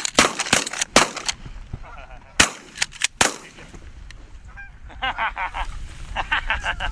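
A rapid volley of shotgun shots from several hunters, about eight in the first three and a half seconds. Geese honking follows near the end.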